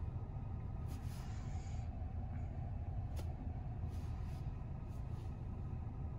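Steady low rumble inside a parked Tesla Model Y's cabin, with a few faint taps of a fingertip on the glass touchscreen.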